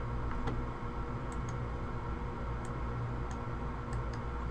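Low steady hum with a few faint, scattered clicks.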